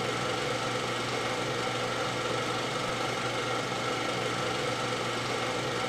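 Steady whirr of a small motor running, with constant humming tones that do not change.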